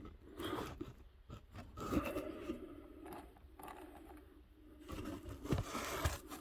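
Handling noises: irregular scraping and rustling as small parts and tools are moved about, with a few light knocks.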